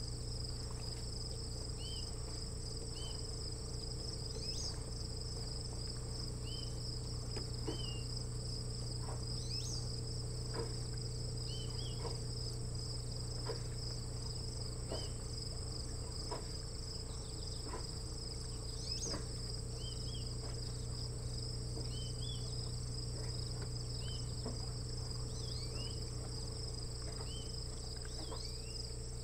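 Steady late-summer cricket chorus, a continuous pulsing trill, with scattered short high chirps over a steady low hum.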